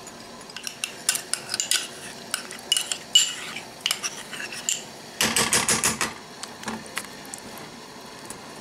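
A spoon clicking and tapping against a metal skillet of thick cream sauce: scattered clinks, then a quick run of about six taps a little past halfway.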